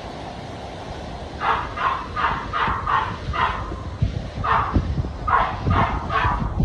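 A dog barking repeatedly: a run of about six barks starting a second and a half in, then four more after a short pause. Underneath is a steady low rumble of storm wind on the microphone.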